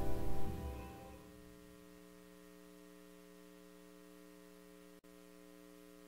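Background music fading out in about the first second, then near silence with only a faint steady electrical hum.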